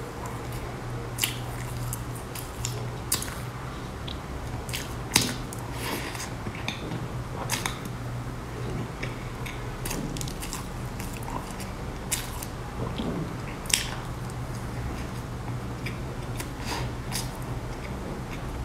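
Close-miked chewing of soft layered cream cake: wet mouth clicks and smacks scattered irregularly, about one every second, over a steady low hum.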